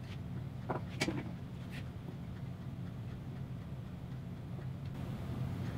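A few light clicks and taps from handling pieces of wood and tools on a bench, about a second in, over a steady low hum.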